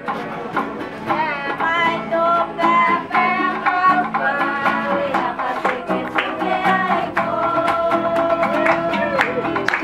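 Intro music led by a plucked guitar, with a melody line running over the strumming.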